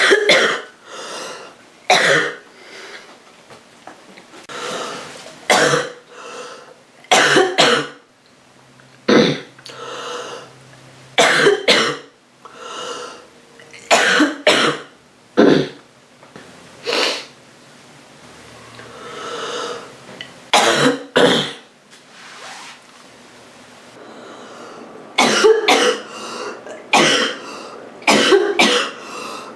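A girl coughing roughly from a cold: sharp coughs that come over and over, often two or three in quick succession, with softer breaths drawn between the fits.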